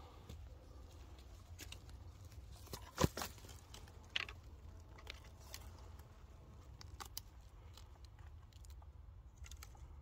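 Scattered crunching and crackling of dry pine needles and twigs on the forest floor as mushrooms are picked and handled, with one sharp snap about three seconds in and a smaller one a second later.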